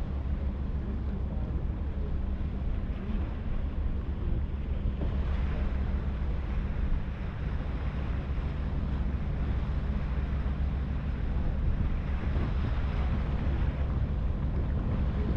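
Harbour ferry under way: the steady low drone of its engine, with wind buffeting the microphone and water rushing along the hull, the wind and water noise swelling a few times.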